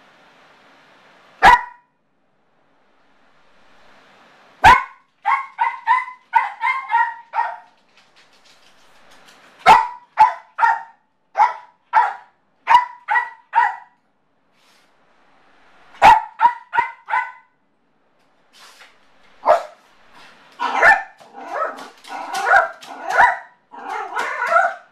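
Yorkshire terrier barking in bouts of sharp, high-pitched yaps: single barks at first, then quick runs of several, growing denser and more continuous near the end. It is separation-anxiety barking from a dog left alone.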